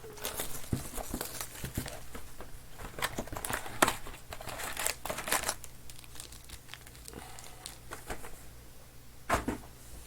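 Crinkling and tearing of plastic wrapping on trading-card boxes and packs being handled and opened: irregular rustling strokes with a few sharper crackles.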